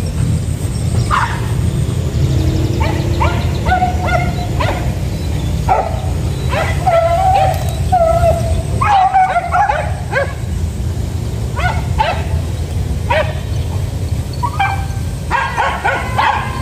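A pack of hunting beagles and village dogs giving tongue on the hunt: repeated short yelps and bays at irregular intervals, some coming in quick runs and overlapping near the end. A steady low rumble runs underneath.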